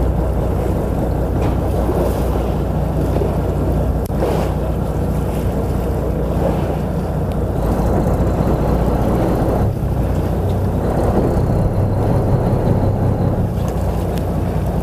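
A fishing boat's engine runs with a steady low hum, along with the wash of water and wind against the microphone.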